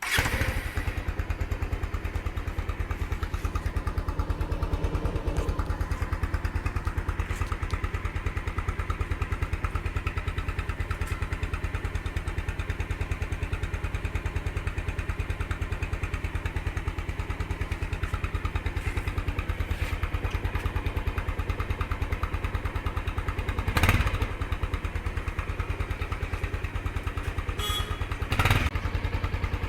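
Bajaj Avenger 200's single-cylinder engine running on its stock exhaust, with a steady, even thumping idle that starts abruptly. Twice near the end there is a brief louder burst.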